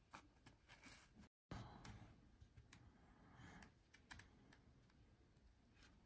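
Faint clicks and rubbing of plastic cards being slid into a snug card holder and pressed together in the hand. All sound drops out briefly about a second in.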